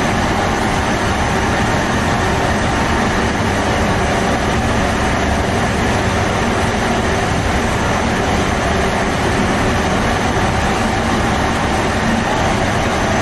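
Steady loud running noise of bakery equipment: a constant hiss over a low hum, unchanging.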